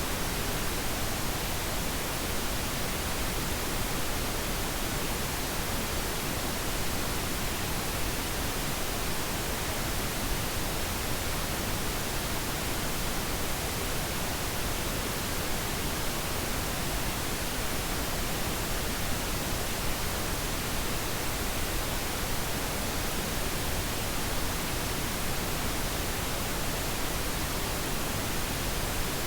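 Steady pink noise: an even, unchanging hiss with no breaks or events.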